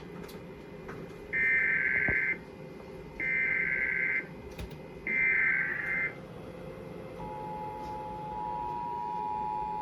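Emergency Alert System tones for a tornado warning: three bursts of warbling digital data tones, each about a second long, which form the SAME header that encodes the alert. About seven seconds in, the steady two-tone EAS attention signal starts and holds.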